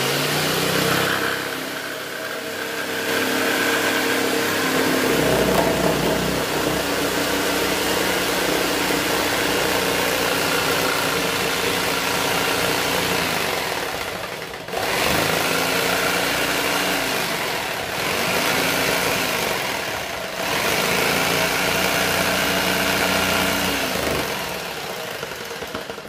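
Electric jigsaw running continuously as its blade cuts through a clear acrylic sheet. The motor sound is steady and loud; a little past halfway it briefly slows and picks up again three times in quick succession.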